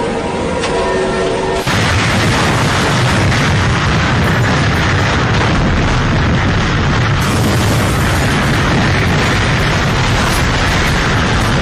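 Brief music, cut off abruptly about a second and a half in by hurricane-force wind blowing hard across the microphone: a loud, steady rush with heavy low buffeting.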